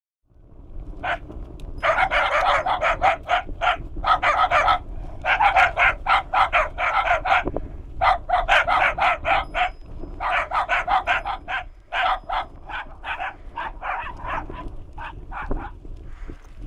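A dog barking fast, about five or six barks a second, in runs of a second or two with short breaks between them. The barks fall off and grow fainter near the end.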